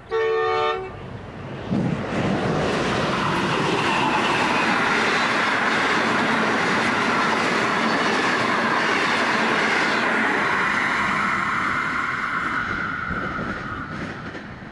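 A short horn blast from an NR class diesel locomotive, then the locomotive and its passenger carriages roll past close by, the steel wheels on the rails making a steady rush with some clickety-clack that fades near the end.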